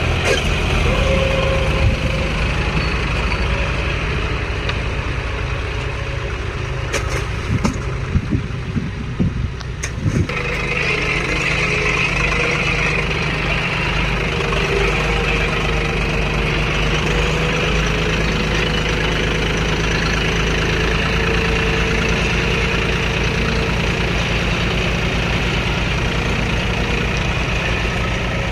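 Tractor diesel engine, the John Deere 5310's three-cylinder, running steadily as the tractor works in deep mud, with a few clunks about a quarter of the way in. About a third of the way in the engine grows louder and holds there.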